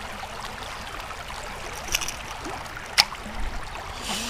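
Shallow river water flowing steadily over rocks, with a faint click about two seconds in and a sharper, louder click a second later.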